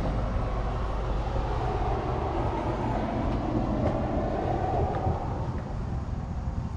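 A steady low mechanical rumble with no clear rhythm or pitch.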